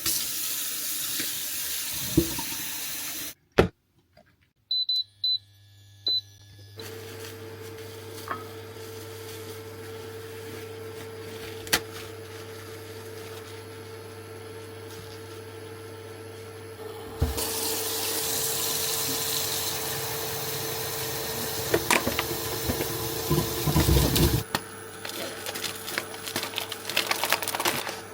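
Kitchen tap running into the sink, stopping after about three seconds. A few short electronic beeps follow, then a steady appliance hum. From about the middle the tap runs again with dishes clinking and clattering.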